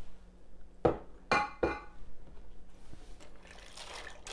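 Three sharp clinks of kitchenware about a second in, the middle one ringing briefly like glass or metal, then soft stirring of dry penne in cream sauce in a skillet near the end.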